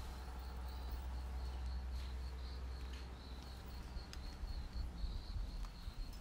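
Insects trilling steadily at a high pitch, slightly pulsing, over a low rumble, with a few faint clicks.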